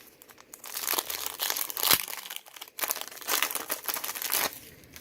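Plastic wrapper of a trading-card pack being crinkled and torn open, a dense crackling crinkle that starts about a second in and stops shortly before the end, with one sharp click in the middle.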